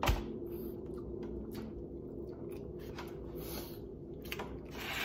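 Eating noises: chicken torn apart by hand in a clear plastic tub and chewed, a run of short crackly smacks and squishes, with a sharp knock at the very start.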